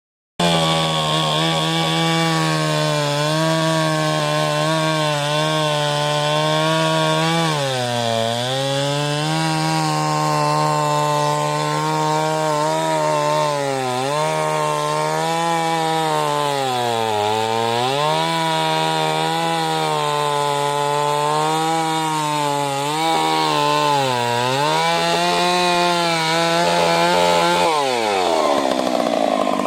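Chainsaw running at high revs while sawing a log into boards, its pitch sagging several times as the cut loads it. Near the end the engine note falls away sharply.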